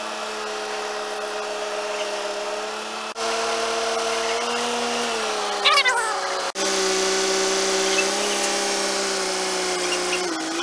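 Steady droning whine of a mobile crane's engine and hydraulics lifting a heavy load, made of a few held tones that shift slightly at abrupt cuts about three and six and a half seconds in. A short squeal that slides in pitch comes just before the second cut.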